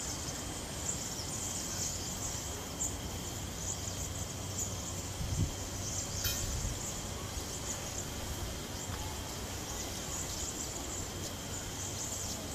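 Outdoor ambience with a steady high chirring of insects over a low rumble, and a single short click about six seconds in.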